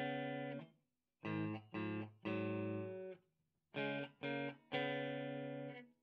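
Fender Blacktop HH Stratocaster electric guitar played through an amp: a chord riff of two short stabs followed by a longer held chord, played twice, each chord cut off sharply into silence.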